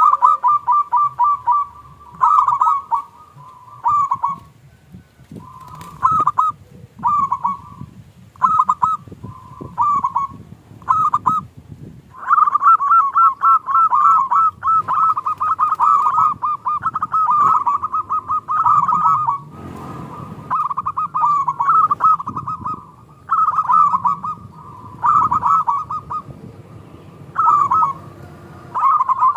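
Zebra doves (perkutut) cooing: short trains of rapid, rolling notes repeated every second or two, running almost unbroken through the middle, as if more than one bird is calling.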